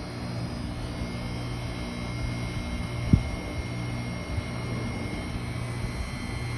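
2002 Arcoaire heat pump outdoor unit running with a steady low hum and a faint steady high whine. One sharp knock comes about three seconds in.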